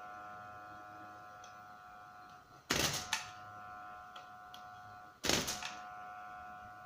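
NEMA 17 stepper motor energised and whining steadily while its lever arm lifts a hanging bag of weights, with two loud clunks about two and a half seconds apart.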